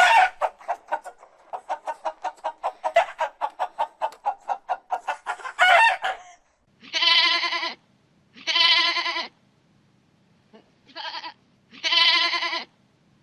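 A chicken clucking rapidly for about six seconds, ending in a louder squawk. Then come four short, bright animal calls with a wavering tone, each under a second long.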